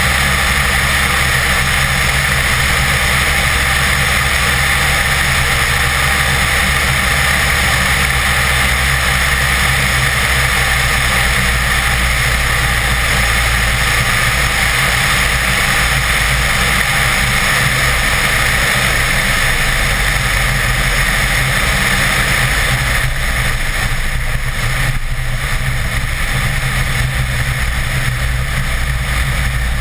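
Steady wind rush and the engine and propeller drone of a Bede BD-4 light aircraft, heard through a wing-mounted camera, during final approach and landing. The sound eases slightly about 23 seconds in.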